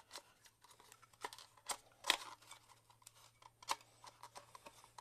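A handful of light, scattered clicks and taps from a snowblower's recoil starter as its pulley is turned by hand in the steel housing, winding the recoil spring one notch tighter so the rope will rewind fully.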